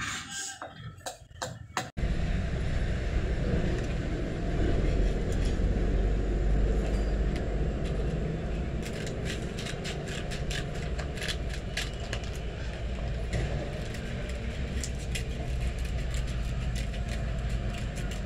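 A quick series of sharp knocks as a wooden knife handle is tapped against the blade on a wooden stump, cut off abruptly about two seconds in. A steady low rumble follows, with scattered faint clicks.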